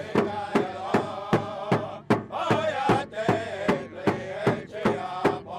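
A drum beaten in a steady, even beat while voices sing a chant.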